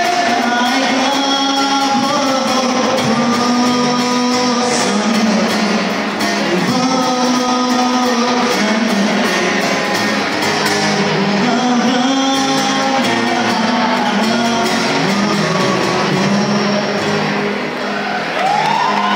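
A man singing while playing an acoustic guitar, amplified through a microphone in a large hall.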